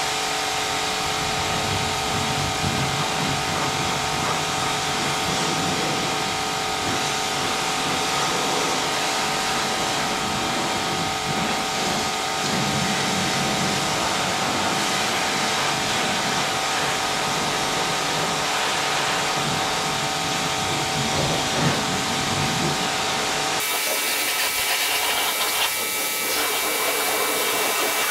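A small electric motor running steadily, a whirring noise with a constant hum in it. About 23 seconds in, the sound abruptly turns thinner and hissier.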